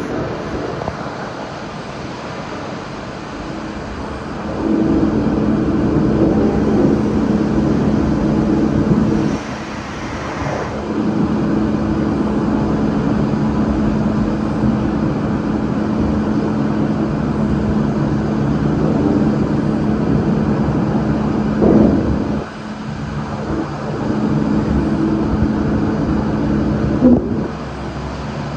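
Heyligenstaedt Heynumat 35/5000 CNC turning/milling centre running: a steady mechanical hum with a low tone. It gets louder about four and a half seconds in, breaks off briefly twice, and has a short sharp knock near the end.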